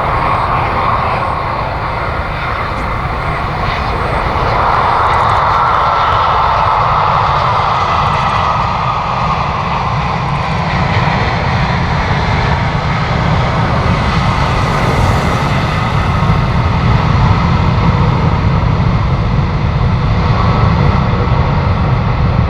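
Arriving jet airliner's engines, a steady loud rushing rumble that swells about four seconds in and then holds.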